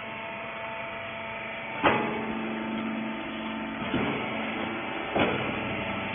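Hydraulic rag baler's motor and pump running with a steady hum, with three sharp knocks from the machine about two, four and five seconds in.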